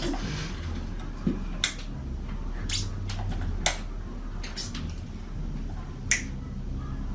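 About five sharp clicks at irregular intervals over a low, steady hum.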